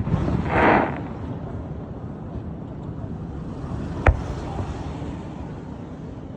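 Fireworks going off: a sharp bang at the start, a short hissing burst just after it, and a single sharp crack about four seconds in, over steady background noise.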